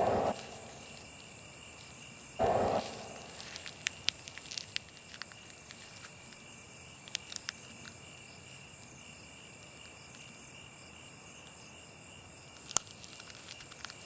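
Steady, high-pitched chorus of crickets chirring, with two short, louder rustling noises in the first three seconds and a few faint clicks.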